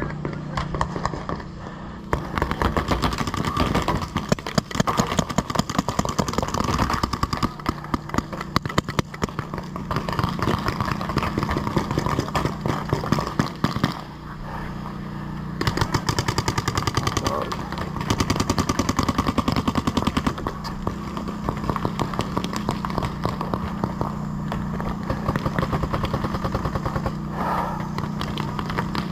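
Paintball markers firing long strings of rapid shots, with a few short pauses, over a steady low hum.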